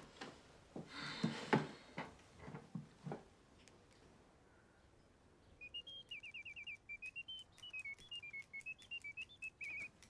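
A mechanical singing-bird automaton in a gilded birdcage whistling a warbling, chirping birdsong with quick trills, starting a little past halfway. Before it, a few light clinks and knocks.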